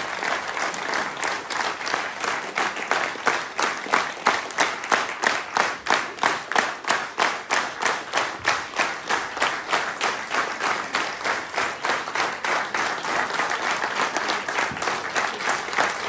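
Audience applauding. A few seconds in, the clapping falls into unison with a steady beat of about two to three claps a second, then breaks back into loose applause after about ten seconds.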